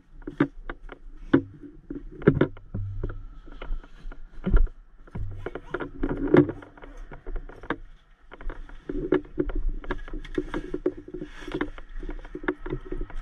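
Irregular clicks, knocks and rustling of equipment being handled and stowed in an ambulance's storage cabinets, with cabinet doors and latches being worked, over a low steady hum.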